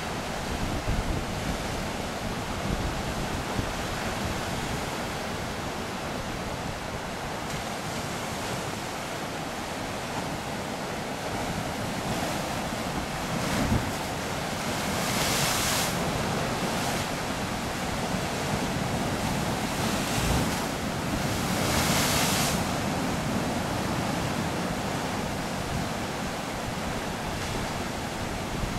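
Pacific ocean surf breaking along the shore and washing against lava rocks, with wind rumbling on the microphone. Two louder wave splashes come through, one about halfway and one about three-quarters of the way in.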